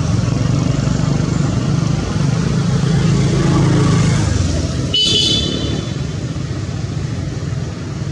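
A steady low rumble of motor traffic that eases off about five seconds in. At that moment a brief high-pitched squeal sounds.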